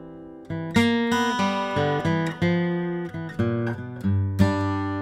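1950s Martin D-28 acoustic guitar, with Brazilian rosewood back and sides, played solo. A ringing chord dies away, then about half a second in the picking starts again, with single notes and chords about every half second.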